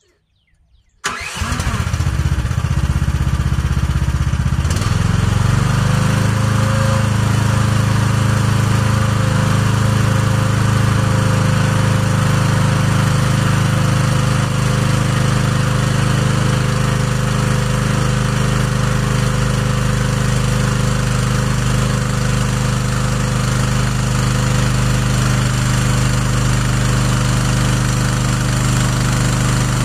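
H13R mini excavator's engine starting about a second in, running unevenly for a few seconds, then settling into steady, even running.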